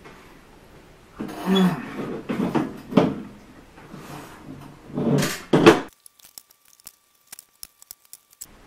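Eating curly fries close to the microphone: a run of loud, irregular chewing and mouth noises. About six seconds in it drops off suddenly to near silence with only faint scattered clicks.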